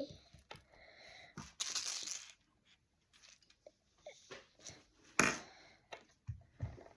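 Handling noises: a short rustle about a second and a half in, a sharp crackling click about five seconds in, and light taps and knocks in between.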